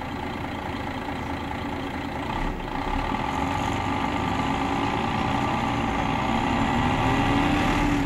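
City bus engine running, heard from inside the passenger cabin. Over the last few seconds it rises in pitch and gets louder as the bus accelerates.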